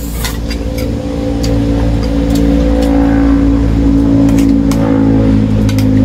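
A motor engine running nearby with a low, steady drone that grows louder about a second in and holds there. Light clinks of spoons on metal bowls come through over it.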